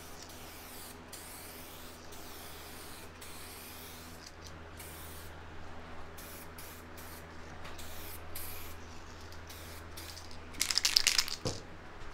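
Aerosol can of SprayMax 2K clear coat spraying a light first coat onto motorcycle fairings: a steady hiss broken by short gaps between passes, with a brief louder burst near the end.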